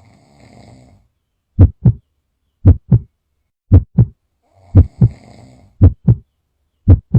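A person snoring: a soft rasping snore comes twice. Each snore is followed by loud low thumps in pairs, about one pair a second, like a heartbeat.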